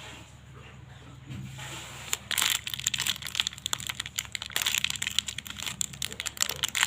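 Plastic packaging crinkling and crackling as it is handled, a quick irregular run of crackles starting about two seconds in.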